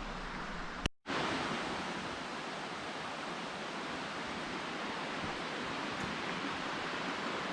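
Steady rushing of a distant waterfall. A click and a brief dropout about a second in break it, then the rushing carries on.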